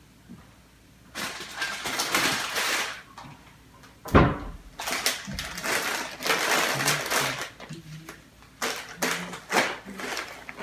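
Crinkling and rustling of foil and plastic wrappers being handled and packed into a soft insulated lunch bag, in irregular bursts, with a single sharp thump about four seconds in.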